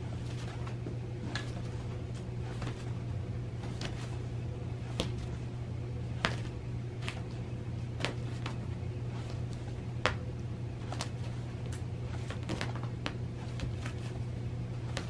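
Scattered, irregular light clicks and taps of a cat pawing and batting at a wand toy on a sisal scratcher and carpet, a few of them sharper, over a steady low hum.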